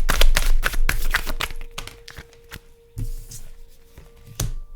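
Tarot cards being shuffled by hand: a fast run of card flicks and riffles for about the first second and a half, then slower, scattered card snaps with a couple of soft thuds as cards are handled or laid down.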